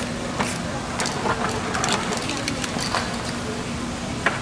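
Busy street background noise: a steady low hum with scattered light taps and clicks, and voices in the background.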